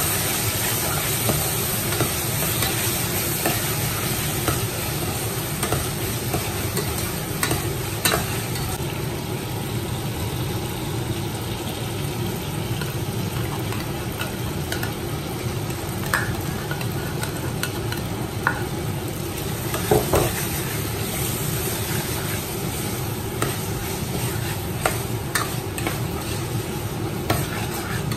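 Onions and tomatoes sizzling as they fry in a stainless steel pot, with a metal spoon stirring and scraping against the pot and giving occasional sharp clicks.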